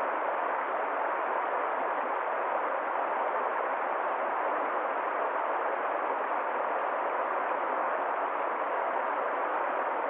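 Small woodland waterfall cascading over rocks into a stream: a steady rush of falling water with no change in level.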